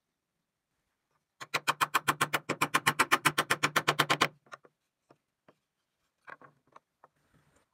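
Claw hammer rapidly tapping a nail into a block of hardwood on a wooden workbench: a quick, even run of sharp knocks, about ten a second, lasting roughly three seconds. A few lighter knocks follow as the wood pieces are handled.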